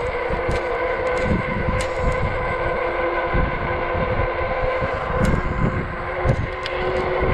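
E-bike riding at a steady speed on pavement: a steady whine from its electric motor and tyres, with wind buffeting the microphone.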